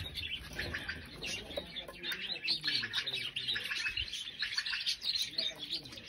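Canaries chirping and twittering: many short overlapping chirps and trills.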